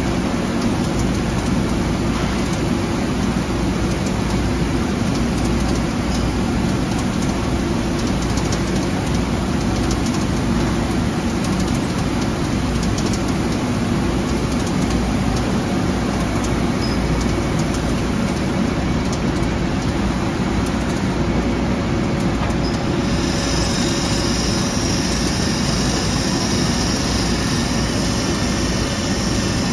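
Okamoto OGM12-20UB CNC universal cylindrical grinder running, its grinding wheel spinning against the work under a coolant stream: a steady hum and hiss. A brighter, higher hiss joins about 23 seconds in.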